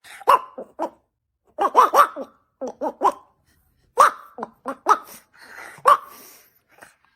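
A dog barking in short clusters of quick, pitched barks, several groups over a few seconds.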